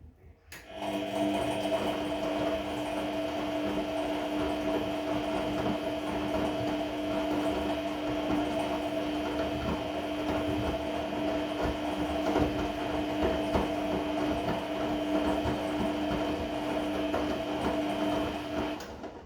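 Regal 1229 T (Vestel-built) washing machine turning its drum in a cotton 30 °C wash. It starts abruptly about a second in, runs for about eighteen seconds with a steady two-pitched whine over a rumble, then stops. The whine is the strange noise that sounds like a belt.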